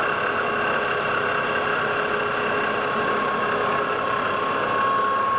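Metal lathe running steadily, its drive giving a steady mechanical whine with several held tones over a busy hum.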